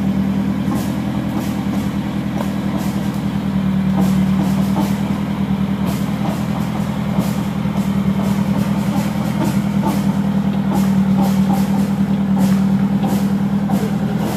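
Off-road 4x4 running with a steady, even drone, with faint clicks and knocks scattered through it.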